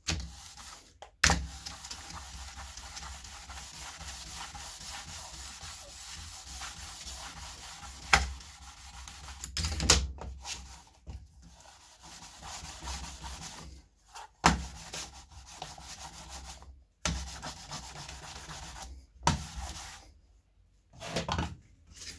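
LGB track-cleaning sponge, an abrasive block, rubbed back and forth over the brass rails of a G-gauge turnout to polish the rail surfaces, a steady scratchy rubbing with brief pauses. A few sharp knocks come in between, and the rubbing stops shortly before the end.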